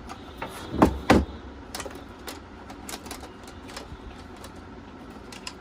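Hands working on a desktop PC case: two solid knocks about a second in, then scattered light clicks and taps of metal and plastic parts.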